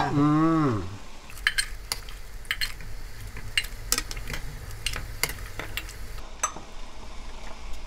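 Beef-bone broth at a rolling boil, bubbling steadily, while a ladle scoops it out, knocking and clinking against the pot rim and a glass measuring cup several times.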